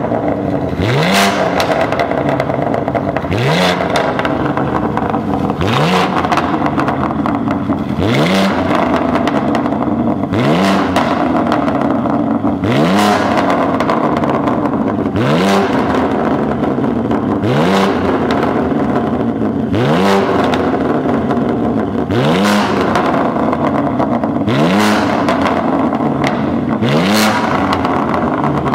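BMW G87 M2's twin-turbo inline-six, through a Fi valvetronic catback and 200-cell catted downpipes, revved in quick blips while stationary, about one every two seconds. Each rev is followed by sharp pops and crackles as the revs drop, from the pops-and-bangs tune.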